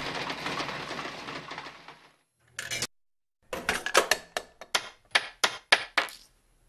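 A loud low rumble fades out over the first two seconds. After a pause, a quick run of about ten sharp metallic clinks, coins dropping one after another, over roughly two and a half seconds.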